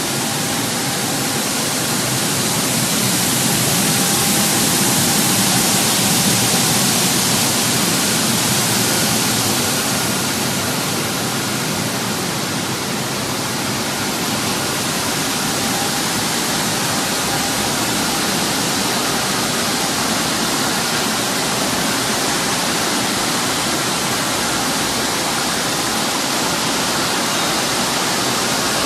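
Steady rushing noise of running food-processing machinery, a bubble washing machine churning water and conveyors running, with a faint steady hum underneath.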